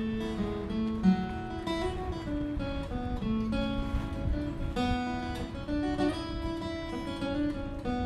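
Acoustic guitar playing a tune, with picked notes and strums.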